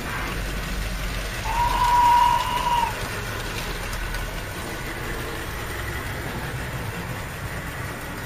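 Hornby OO model trains rumbling around the layout's track, with one steady whistle-like tone held for over a second about a second and a half in.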